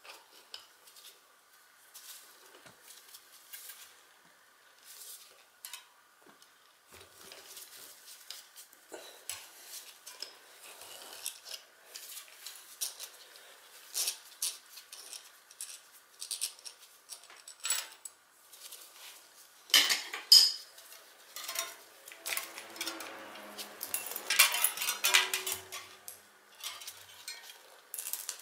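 Metal clinks and rattles of a bicycle chain, a lockring tool and a wrench against a rear-wheel cassette while the lockring is worked loose with a homemade chain whip. Scattered light clicks at first, then louder clatter about twenty seconds in and a longer run of chain rattling a few seconds later.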